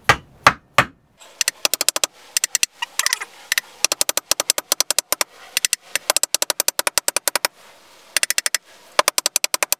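A rubber mallet strikes the aluminum Tuttle-to-top-plate adapter three times in the first second, seating it on the carbon foil mast. After that come several bursts of very rapid, even clicking, each lasting about a second.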